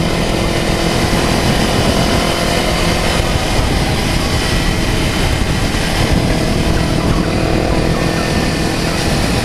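Motorcycle engine running at steady revs while riding, under a steady rushing noise.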